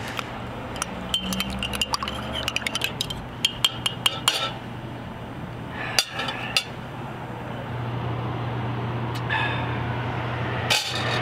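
Metal spoon stirring coffee in a ceramic mug, clinking quickly and repeatedly against the sides for the first few seconds, followed by a few separate clinks of crockery later on.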